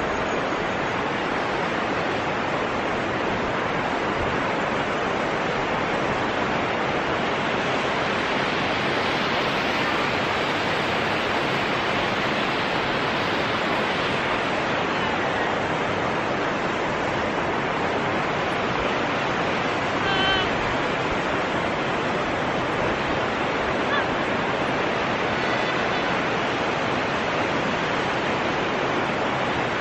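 Steady rush of river water running through the gorge below, an even hiss that does not let up. A few faint high chirps come through about twenty seconds in.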